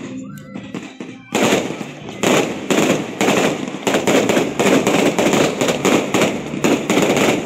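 Fireworks display: aerial shells bursting, a run of sharp cracks and bangs that begins abruptly about a second in and goes on in quick succession.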